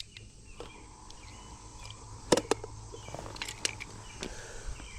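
Small battery-powered bait aerator running with a steady low hum, and a few sharp clicks and knocks from about two seconds in.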